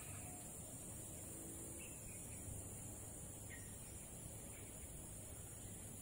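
Forest ambience: a steady high-pitched insect drone, with a few short bird chirps scattered through it.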